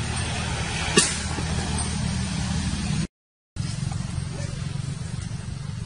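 Steady low rumble and hiss of outdoor background noise, such as distant traffic or wind on the microphone, with one sharp click about a second in. The sound cuts out completely for about half a second a little past the middle.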